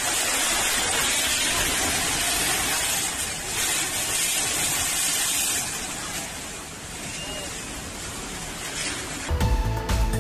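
Swollen flood river rushing, a loud steady noise of fast water. Music with a beat starts near the end.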